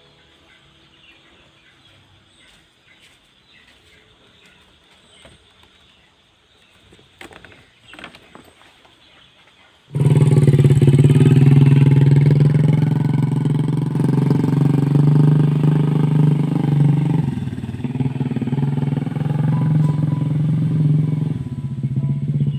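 Quiet at first, with a few faint ticks. About ten seconds in, a motorcycle engine suddenly comes in loud and keeps running steadily, easing a little later on.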